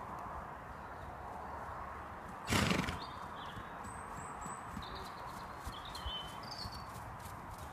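Connemara pony moving under a rider on an arena surface, its hoofbeats over a steady background hiss. One short loud burst of noise comes about two and a half seconds in.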